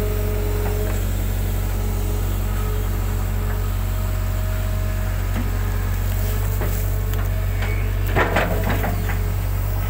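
Hitachi hydraulic excavator running steadily while digging, heard from the operator's cab: a low engine drone with a faint steady hydraulic tone. A short cluster of knocks and clatter about eight seconds in, as the bucket works the mud.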